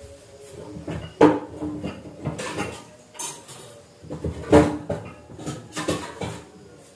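Kitchenware clattering as pots and dishes are handled and set down, a string of knocks with short ringing, the two loudest about a second in and about four and a half seconds in.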